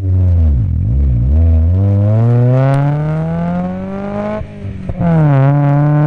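Mazda Miata's four-cylinder engine driven hard in an autocross run. The revs fall and rise twice, then climb steadily for about three seconds, drop suddenly, and climb again before levelling off.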